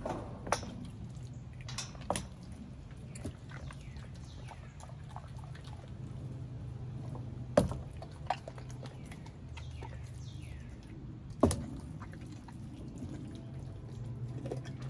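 A young pit bull chewing and tearing at a whole raw chicken: wet chewing and smacking, broken by a few sharp cracks, the loudest about halfway through and again a few seconds later, over a steady low hum.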